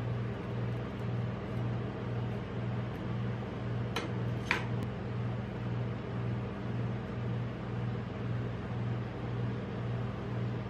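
Steady low electric hum of a rolled-ice-cream cold plate machine's refrigeration unit, pulsing about twice a second. About four seconds in, two sharp clinks of a metal spatula on the steel plate.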